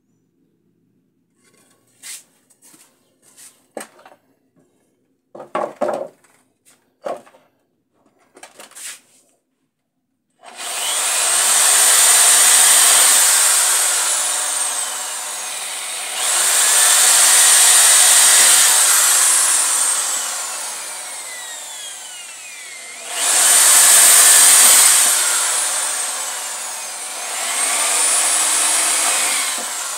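Handheld corded electric drill boring into a wooden board, running in four long surges whose whine starts high and slides down as the bit bites into the wood. A few light knocks and handling sounds come first, over the first ten seconds, before the drill starts.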